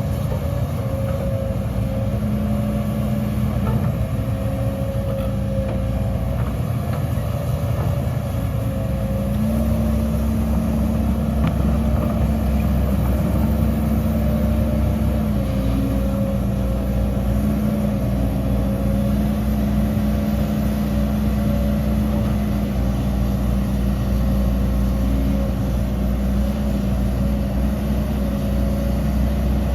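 Diesel engine of heavy earthmoving machinery running steadily. From about nine seconds in it works harder, getting louder and deeper, with its pitch stepping up and down as the load changes.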